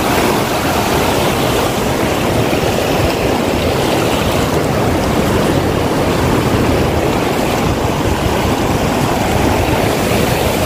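Water rushing over a low concrete irrigation dam: a steady, loud rush of whitewater spilling down the weir into the shallow river.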